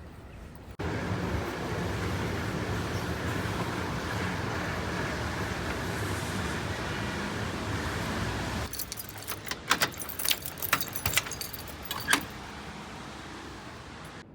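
Steady vehicle road noise that starts and cuts off abruptly, followed by a few seconds of keys jangling and clicking.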